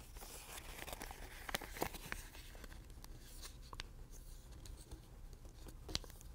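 Faint rustling and scraping of a sheet of origami paper being folded and creased flat by hand, with a few short, sharp clicks.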